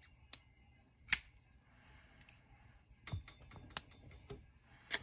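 MBK Mini Old Guard folding knife being opened and closed by hand to test its action: sharp clicks as the blade snaps open and shut on its pivot, the loudest about a second in, then a quick run of clicks about three seconds in and one more near the end.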